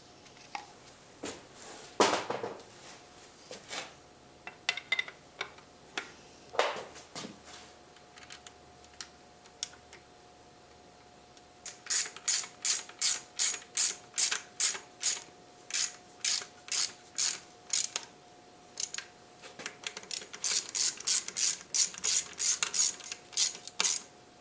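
Hand ratchet wrench clicking in quick back-and-forth strokes, about two a second, as bolts are run down; it starts about halfway through. Before that, a few scattered metallic knocks and clicks from tools and parts being handled.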